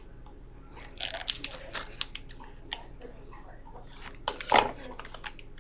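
Crinkling, crackling handling noise from a clear plastic bag worked close to the microphone, with a louder knock about four and a half seconds in.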